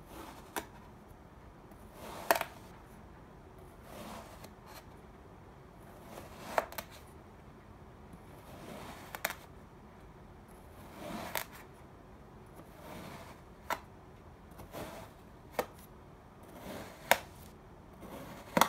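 Kitchen knife slicing through a block of kinetic sand: each stroke gives a soft, grainy crumbling, ending in a sharp click as the blade meets the hard surface underneath, about one cut every two seconds.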